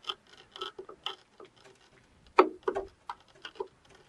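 A warped T-25 tractor valve cover rocked by hand on a flat sheet of glass, its edge knocking on the glass in a string of irregular light clicks, with one louder knock a little past halfway. The rocking shows the cover is bent, the cause of its oil leak.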